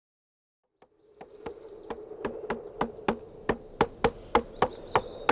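Several sledgehammers striking stakes in turn: sharp strikes at about three a second, starting about a second in and growing louder, over a steady buzzing hum.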